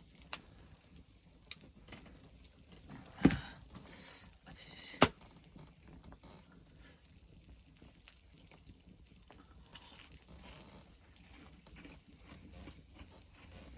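Faint background with small scattered clicks and two sharp knocks, about three and five seconds in, the second the louder.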